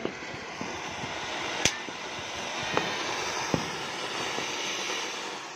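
A lit firework burning with a steady hiss, its spray of sparks crackling with a few sharp pops.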